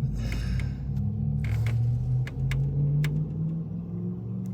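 Chevrolet Tahoe V8 engine running at idle, a low steady hum that wavers slightly in pitch, with a few sharp clicks over it.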